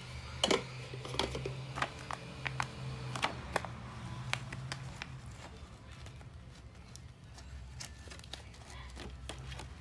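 Small sharp clicks and taps of hand tools against a phone as its cracked screen is pried loose, densest in the first few seconds, over a steady low hum.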